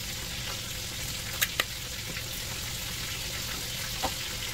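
Breaded chicken tenders frying in hot oil, a steady sizzle. Two quick clicks come about a second and a half in, and another near the end.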